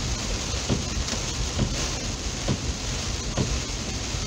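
Heavy hurricane rain pelting a moving car's windshield and roof, heard from inside the cabin as a dense, steady hiss, with a soft regular thud about twice a second.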